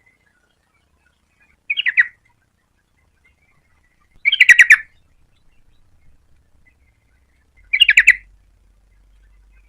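Yellow-vented bulbul (trucukan) calling: three short bursts of rapid chattering notes, about three seconds apart.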